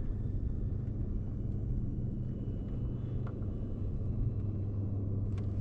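A motor running steadily: a low, even hum and rumble.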